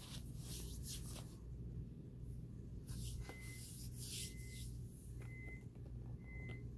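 Chewing a mouthful of Argo starch powder: dry, crackly crunches in short bursts. Four short, even high beeps about a second apart in the second half.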